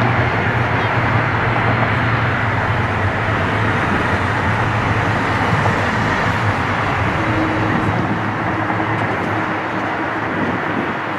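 Steady rumble of road traffic, cars passing close by, mixed with the four engines of a Boeing 747-400 running at taxi power. The noise eases slightly near the end.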